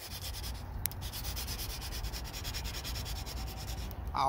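220-grit sandpaper rubbed back and forth by hand along the scraped edge of an alloy wheel rim: steady, even sanding that smooths the curb-rash scrapes before paint.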